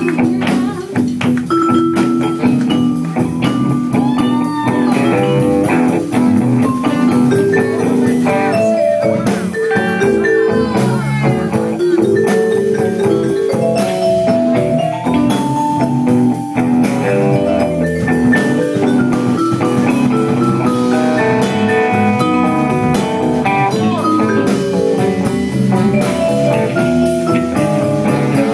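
Blues band playing live in an instrumental stretch: a lead line with notes bending in pitch over steady guitar and drum accompaniment.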